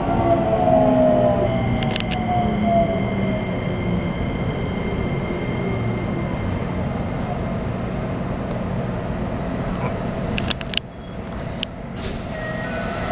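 Keikyu New 1000 series electric train with a Toyo IGBT-VVVF inverter, heard from inside the car: the inverter and traction-motor whine falls in pitch over the first few seconds and fades into a steady rumble of wheels on rail with a faint high whine. About eleven seconds in come a few sharp clicks and a brief drop in level.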